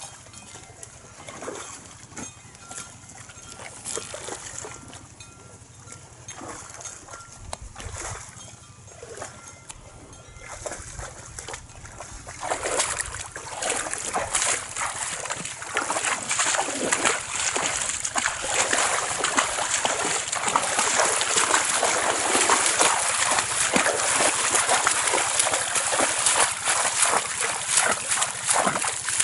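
N'Guni cattle wading in shallow lake water: scattered small splashes at first, then from about twelve seconds in a steady, louder run of hooves splashing and sloshing through the water.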